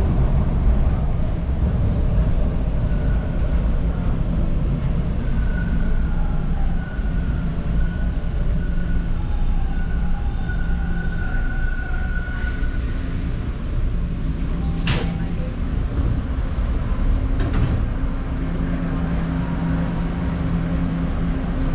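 Toronto subway car interior: the train's steady low hum and rumble, with a faint high whine that comes and goes, and a sharp click about 15 seconds in.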